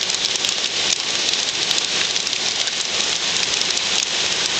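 Hailstones pelting down in a dense, steady clatter, with many sharp separate hits standing out from the hiss.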